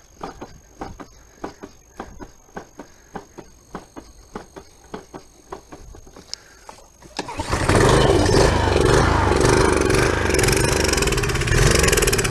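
Small Briggs & Stratton engine on a pressure washer running roughly with slow, even pops about three a second, then picking up about seven seconds in and running loud. It is struggling on old gasoline just dosed with Sta-Bil fuel treatment.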